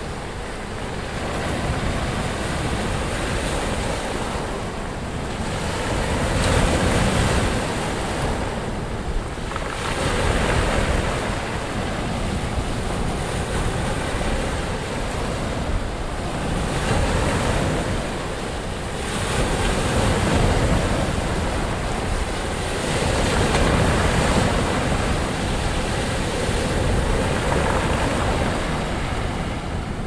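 Rough sea surf: breakers crashing and washing in continuously, the roar swelling louder every few seconds as each wave breaks.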